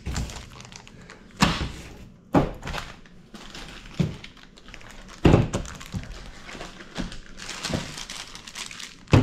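Hand tools being unwrapped from plastic bags and set down on a plastic folding table: crinkling plastic with several hard thunks as the tools are put down.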